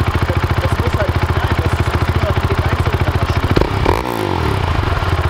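Motorcycle engine running at a steady idle, with a short blip of the throttle about three and a half seconds in and the revs falling back to idle.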